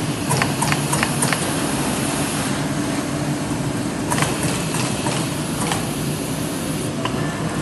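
Trumpf Trumatic 160R CNC turret punch press running: a quick run of about five sharp punch strokes near the start and a few more in the middle, over the machine's steady hum and a hiss.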